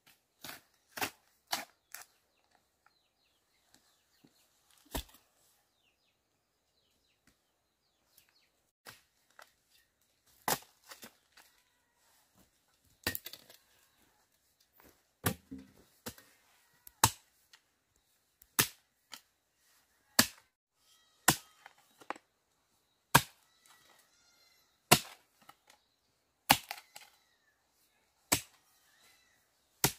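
Repeated sharp chopping strikes of a hand tool, irregular at first, then about one every one and a half to two seconds through the second half, with faint bird chirps between the blows.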